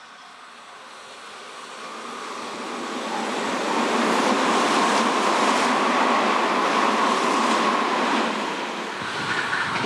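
Tobu Railway electric train passing at speed: its noise builds over about four seconds, holds loud with a steady whine for a few seconds, then falls away near the end.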